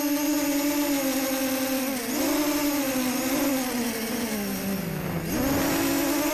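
Brushless motors of a Storm SD250 FPV quadcopter whining, picked up by its onboard camera. The pitch wavers with the motor speed, sinks for a second or so about four seconds in, then jumps sharply back up near the end as the motors spin up again.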